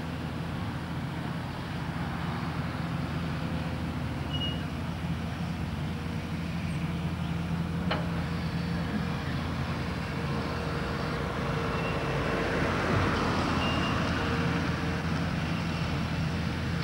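Steady low rumble of vehicle engines that slowly grows a little louder, with one sharp click about eight seconds in.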